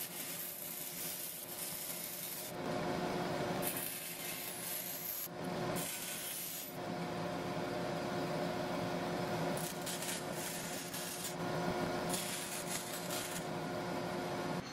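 Bandsaw running with a steady hum while its blade cuts thin silver sheet into small squares. The rasping cutting noise swells and fades with each of several cuts while the motor tone holds.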